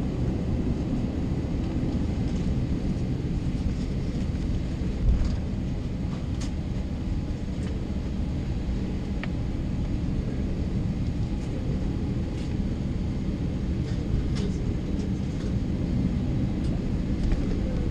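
Steady low rumble inside an Airbus A321's cabin as the jet taxis on idling engines, with a single thump about five seconds in and a few faint clicks.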